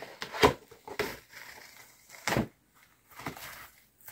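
A plastic Cricut cutting mat being flexed and bent away from cut felt: a few sharp clicks with soft rustling between them.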